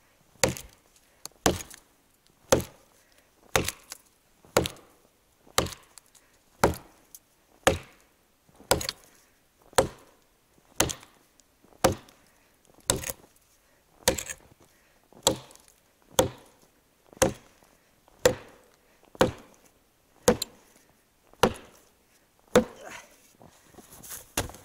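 Forged Toporsib "Burunduk" axe chopping into a felled log to cut it across, about twenty sharp strikes at a steady pace of roughly one a second. The chopping stops about two seconds before the end, leaving faint rustling.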